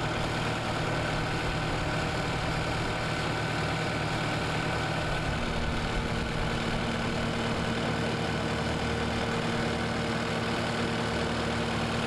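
Case TR310 compact track loader's diesel engine running steadily while the machine carries a load on its forks; a higher steady tone comes in about five seconds in.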